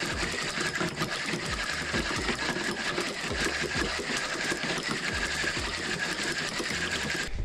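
Shimano Sienna 1000 spinning reel cranked fast, its gears and rotor making a steady whirr as braided line winds onto the spool.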